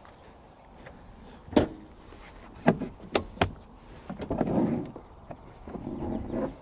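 Rear seat of a Honda N-Box being folded flat by hand: four sharp clicks and clunks from the seat latches and hinges, then a rustling shuffle as the seat is pushed down.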